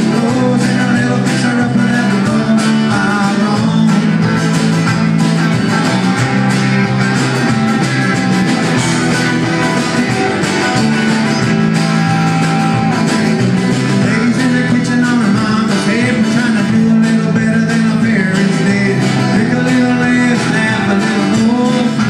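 Live band playing a country-rock song: acoustic and electric guitars, bass guitar and drums, with a steady bass line underneath.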